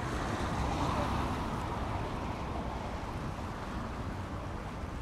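Turboprop engines of low-flying Bombardier CL-215T/415 water bombers: a distant, steady drone that swells about a second in and then eases. Wind buffets the microphone with a low rumble throughout.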